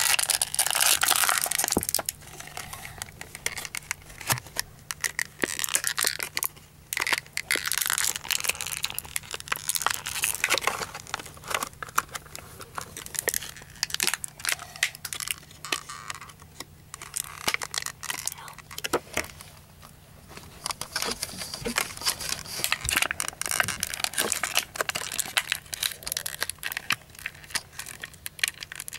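Clear plastic toy packaging being crinkled, crushed and torn by hand, a dense irregular crackling with scattered clicks, loudest in the first couple of seconds.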